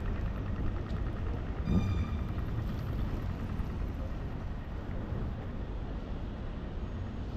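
Steady low rumble of city street traffic, with a brief high-pitched squeal about two seconds in.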